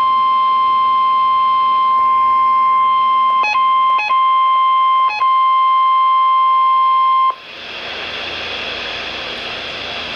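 Emergency Alert System warning alarm tone, the single steady high beep of a NOAA Weather Radio alert, heard through a radio receiver. It breaks off three times for an instant around the middle, stops abruptly about seven seconds in, and gives way to a steady radio static hiss.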